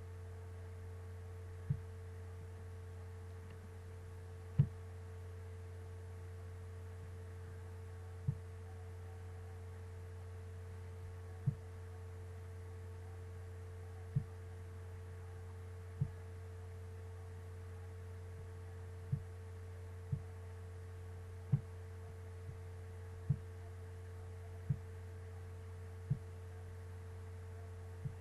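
A steady low hum with a fainter higher tone over it, broken by short, soft low knocks at uneven intervals, one every one to three seconds or so.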